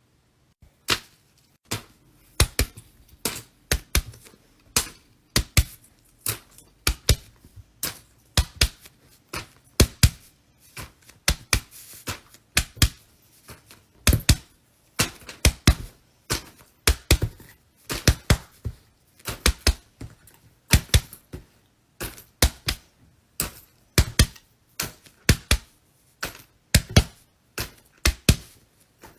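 Fidget toys being pressed and clicked: a long run of sharp clicks and pops, a few a second, in uneven clusters.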